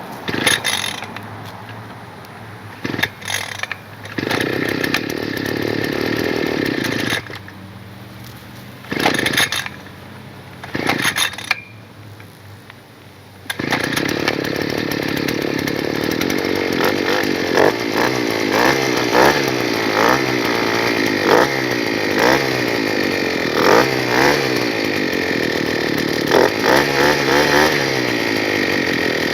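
Gas-powered earth auger engine running in short stop-start bursts, then running continuously from about halfway through with repeated brief revs as holes are bored for seedlings.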